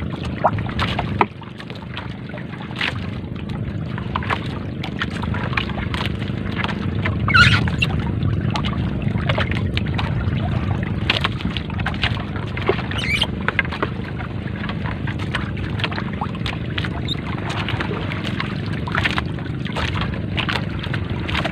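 A small fishing boat's steady low drone with water sloshing, overlaid by scattered clicks and rustles as a three-ply nylon gill net is pulled in by hand over the gunwale.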